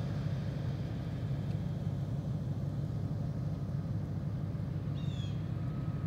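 Steady low rumble of a vehicle being driven, with a short high chirp about five seconds in.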